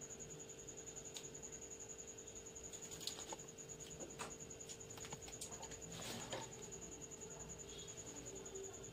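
Faint scattered clicks and rustles of a needle and thread being pushed and pulled through paper during hand stitching, over a steady high-pitched whine and low hum.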